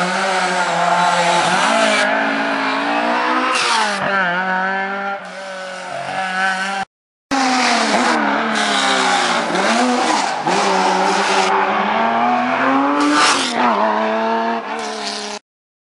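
Historic rally cars passing one after another under hard acceleration, each engine revving high, its pitch climbing and dropping with each gear change. The sound cuts out for a moment about seven seconds in; the second car is a Porsche 911 with its air-cooled flat-six.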